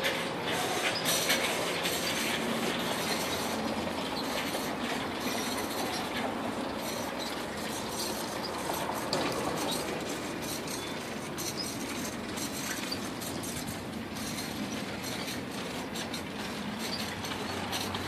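Bicycle rolling along a paved path: a steady rush of tyre and air noise with continual light rattling and clicking from the bike.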